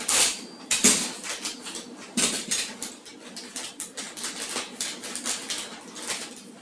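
Plastic packaging bag being cut and torn open by hand: irregular crinkling and crackling, with sharp crackles near the start, about a second in and about two seconds in, then softer rustling.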